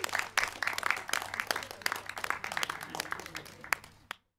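Applause from a small group, the claps thinning out and getting quieter, then cutting off abruptly about four seconds in.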